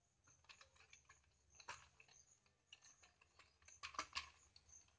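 Faint scattered clicks and rustles of hands working wire ends onto the terminals of a switchboard socket, with a few louder clicks near two seconds in and around four seconds in.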